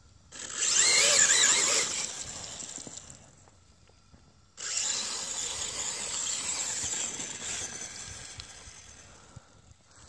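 Axial Deadbolt RC truck's electric motor and drivetrain whining under throttle as its wheels spin through mud, the pitch wavering up and down. Two bursts: a loud one starting just after the beginning, and another starting about halfway that fades toward the end.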